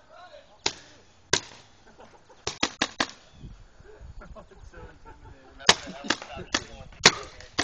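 Paintball markers firing single shots: sharp pops at irregular intervals, with a quick run of four about two and a half seconds in and another group of shots from about halfway on.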